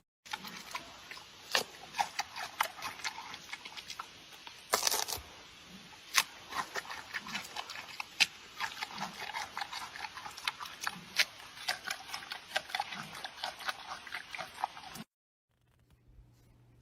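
An animal making faint low sounds amid many sharp clicks and crackles, cutting off suddenly near the end.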